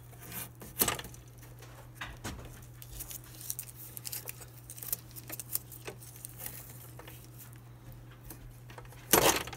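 Small scratching, rubbing and clicking sounds of a tool stripping the outer sheath of Romex cable and the wires being handled, with a louder brief rustle about nine seconds in.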